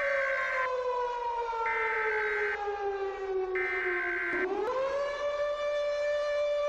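Civil defense siren wailing: its pitch sinks slowly for about four seconds, swings back up quickly and then holds steady. During the first half a higher alarm tone pulses on and off about every two seconds over it.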